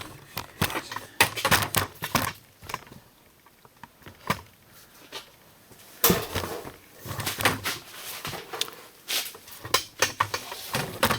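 Handling noise from a camera tripod being picked up and repositioned: a string of knocks, clicks and rustling, with a quieter stretch in the middle before the knocking picks up again.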